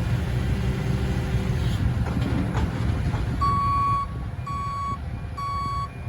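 Construction vehicle's diesel engine running with a low rumble, and about three and a half seconds in its reversing alarm starts beeping, three beeps about a second apart: the machine is backing up.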